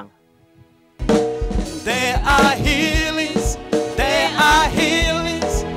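Worship music with a singing voice over a drum kit with a steady bass-drum beat, coming in suddenly about a second in after a faint held tone.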